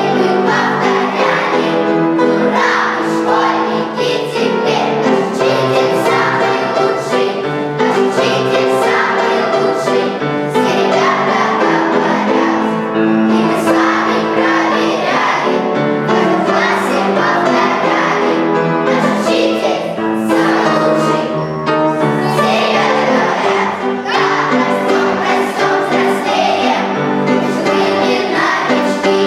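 A group of children singing a song together, with instrumental accompaniment.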